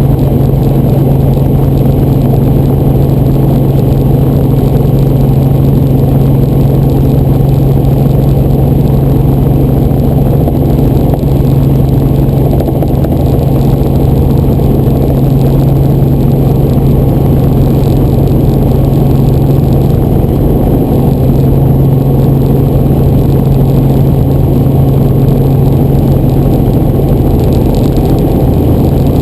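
Helicopter engine and rotor noise: a loud, steady drone with a strong low hum that does not change.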